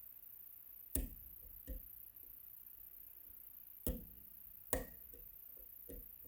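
Sharp metallic clicks, irregularly spaced, from a dimple pick and tension tool working inside the keyway of an Agent LS5 dimple lock. There are four loud clicks and a few fainter ones.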